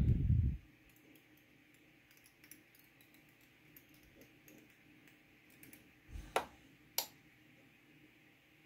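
A low bump at the start, then faint scattered ticks and taps of small fly-tying tools and thread being handled, with two sharp clicks about six and seven seconds in.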